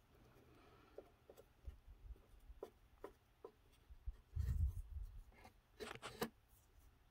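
Wooden craft stick dabbing and scraping glue-soaked toilet paper onto a wooden dollhouse edge: scattered light taps and clicks. About four and a half seconds in there is a dull low thump, the loudest sound, followed a second later by a quick cluster of sharper taps.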